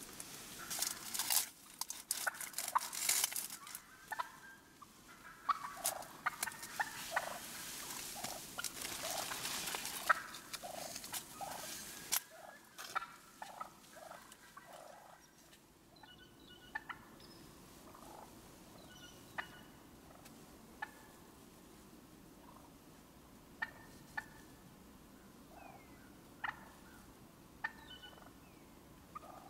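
Wild turkeys calling: a busy run of short, close-spaced calls for the first twelve seconds or so, then scattered single sharp calls.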